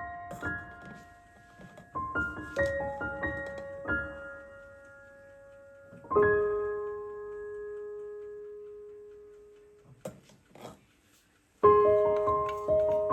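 Background solo piano music: slow, gentle notes and chords that ring out and fade. The music breaks off for a moment near the ten-second mark, with a few faint clicks in the gap, then resumes.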